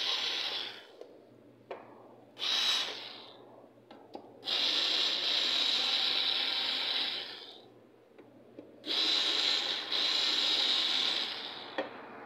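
Black & Decker cordless drill/driver running in bursts as it backs screws out of a repeater's metal case lid: a brief run at the start, a short one near three seconds in, then two longer runs of about three seconds each. Small clicks of the bit and screws sound in the gaps.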